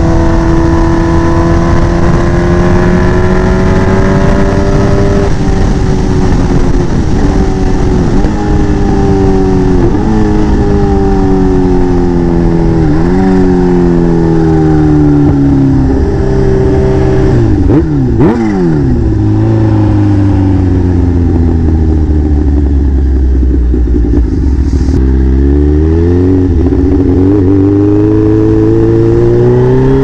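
Kawasaki Ninja H2's supercharged inline-four engine running loud, its pitch falling in steps with short sharp upward jumps, as when slowing through the gears with downshift blips. It settles at low revs for several seconds, then revs climb steadily again about 25 seconds in.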